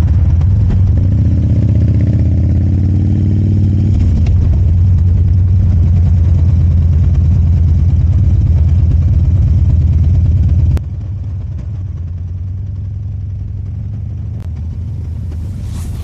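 2007 Harley-Davidson FXDC Dyna's Twin Cam V-twin engine running while riding, its pitch rising as it accelerates about one to four seconds in. Just before eleven seconds the sound drops suddenly in level and carries on lower and steadier, with a brief whoosh near the end.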